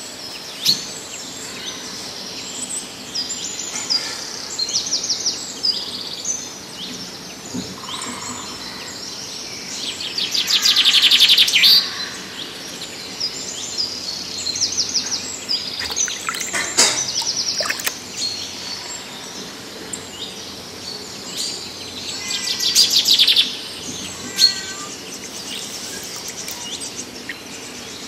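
Birds chirping and calling throughout, with two louder runs of fast repeated high notes, about ten seconds in and again about twenty-two seconds in.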